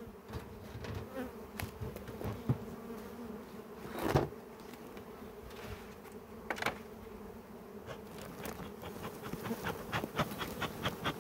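Honeybee colony buzzing in a steady hum from an opened hive, with a few sharp knocks, the loudest about four seconds in, and a quick run of light ticks, about four a second, near the end.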